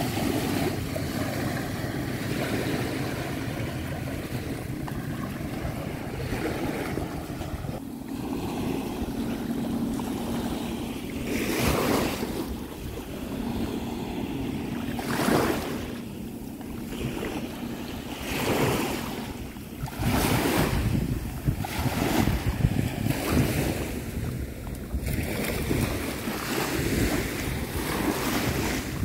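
Small sea waves washing in the shallows with wind buffeting the microphone, swelling into louder surges several times.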